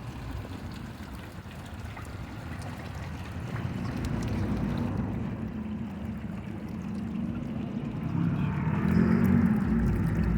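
Outdoor ambience of a fountain's water trickling under a low rumble of passing traffic, which swells about four seconds in and again near the end.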